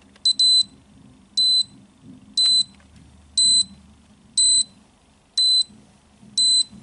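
Alarm control panel keypad beeping after the system has been armed with a password: a short high-pitched beep about once a second, the exit-delay countdown.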